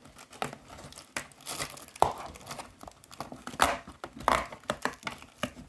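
Perforated cardboard door of an advent calendar being pressed in and torn open by hand, with irregular crackling and crinkling.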